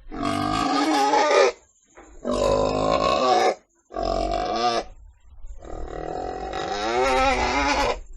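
Pig vocalizing: four loud, pitched calls with short gaps between them, the last the longest at about two and a half seconds.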